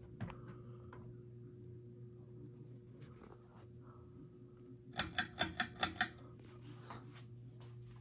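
Encon ceiling fan running with a steady low motor hum and faint scattered clicks. About five seconds in, a quick run of six sharp clicks, the loudest sound here.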